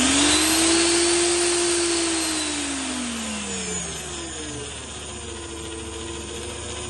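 Vevor magnetic drill's electric motor speeding up on its speed control to a steady high whine, then slowing with a falling pitch about two seconds in, and running on quieter at low speed.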